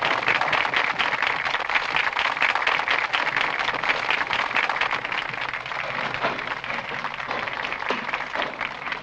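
Crowd applauding, dense clapping that slowly dies away.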